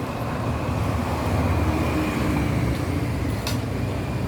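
Steady low rumble of motor-vehicle traffic, with a faint click about three and a half seconds in.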